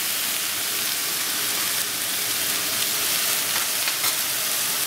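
Chicken, broccoli and melting chicken broth sizzling steadily in a hot wok.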